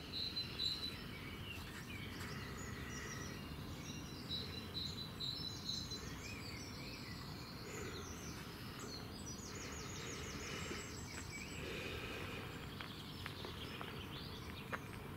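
Dawn chorus of several songbirds, clear whistles and rapid trills from more than one bird, over a low steady background rumble.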